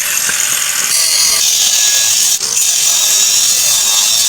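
Handheld power tool running steadily on the truck's chassis, a loud high-pitched hiss that briefly drops away about two and a half seconds in.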